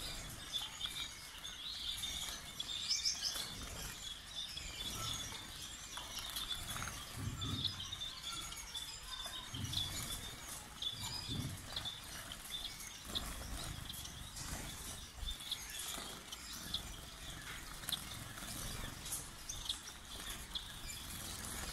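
Flock of Gouldian finches chattering in an aviary: many short, high chirps and tweets overlapping throughout, with irregular low rumbles underneath.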